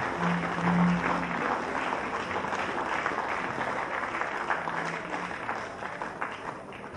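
Audience applauding, the clapping slowly thinning and dying down toward the end.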